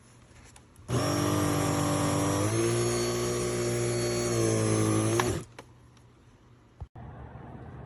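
Kenmore BU3040 Intuition Lite bagged upright vacuum running. It starts abruptly about a second in, rises in pitch for a couple of seconds midway, drops back, then is switched off and winds down, followed by a single click.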